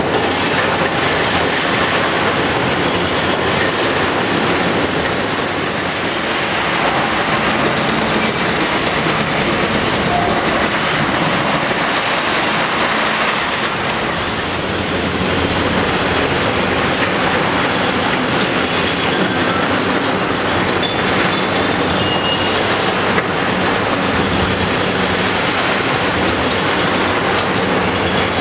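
Large Hitachi hydraulic demolition excavator at work: its diesel engine runs steadily under a continuous clatter and crunch of the steel bucket breaking and raking concrete rubble.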